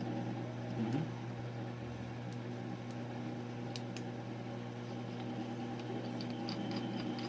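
Steady machine hum of a small motor, with a few faint clicks.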